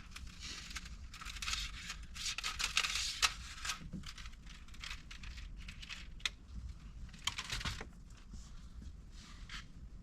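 Irregular rustling and scraping as a cable is handled and worked behind plastic vehicle interior trim, with a few sharp clicks.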